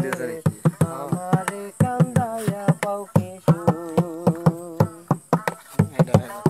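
Instrumental break in a Bengali folk song: a melody with wavering held notes over a steady drum beat, between sung lines.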